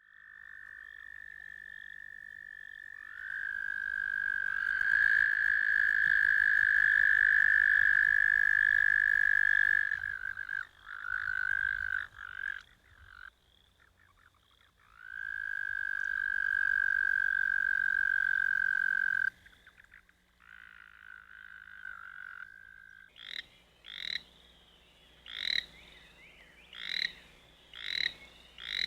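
Toads trilling: long, steady, high trills lasting several seconds at a time, two of them overlapping at slightly different pitches, with breaks between. Near the end they give way to short croaking calls repeated about every second and a half.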